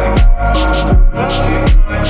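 Electronic dance music with a steady beat: a deep kick drum about every three-quarters of a second, over bass and synth with cymbal hits.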